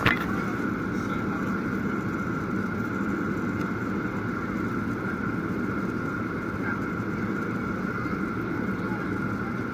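Steady jet-airliner cabin noise heard at a window seat: engine drone and rushing air, with a steady high whine above it, from a Boeing 737-type airliner on descent.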